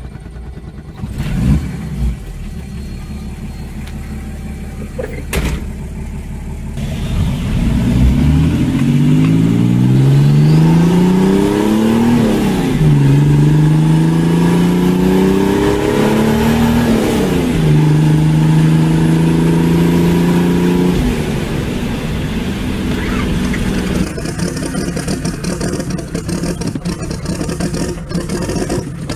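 Diesel car engine pulling hard through the gears, heard from inside the cabin: the note climbs, drops at a gear change, climbs again, drops at a second shift, then holds steady. A quieter engine runs on near the end.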